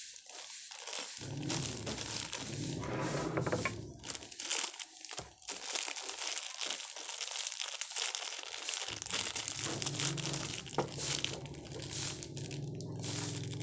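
Plastic packaging crinkling as small parts are unwrapped and handled, with light clicks and knocks of parts on a wooden table.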